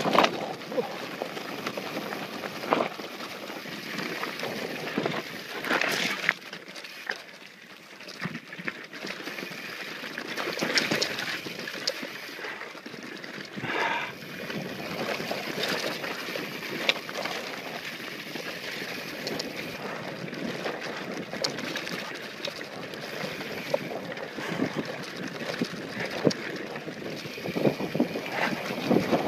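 Mountain bike riding fast down a rocky dirt trail: a steady rush of tyres on loose dirt and gravel, broken by frequent clatters and knocks as the bike rattles over bumps.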